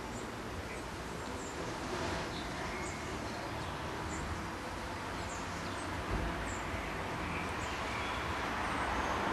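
Outdoor ambience: a steady background noise with small birds chirping now and then, and a single low thump about six seconds in.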